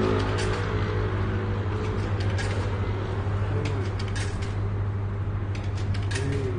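Steady low hum of running laundromat machines, with a scattered handful of short, light clicks.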